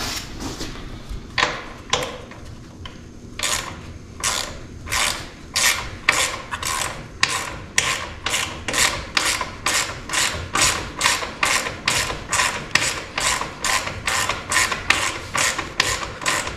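Ratchet wrench clicking, a few separate strokes at first and then a steady run of about two to three strokes a second from a few seconds in, as a bolt on the motorcycle's stock exhaust clamp is loosened.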